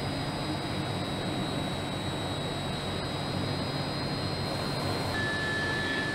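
Robotic paint-booth spray heads (rotary-bell atomizers) working on a car body: a steady rushing noise with thin, high, steady whines over it. About five seconds in, the high whine gives way to a lower steady whine.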